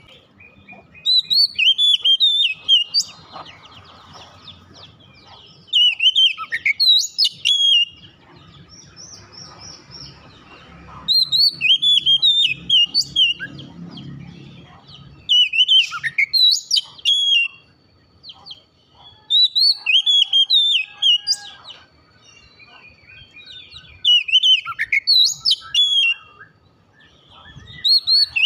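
Oriental magpie-robin singing: short bursts of clear whistled phrases with sweeping notes, repeated about every four seconds.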